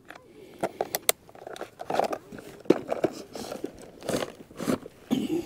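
Handling noises of a clear plastic lure box: a series of sharp plastic clicks and knocks as it is closed, then rustling as it is slid into a fabric tackle bag.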